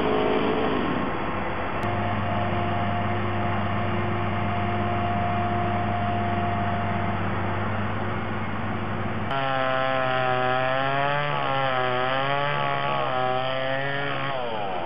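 Tree-removal machinery running: a steady engine drone, then, from about two-thirds in, a chainsaw engine whose pitch wavers up and down as it cuts, stopping shortly before the end.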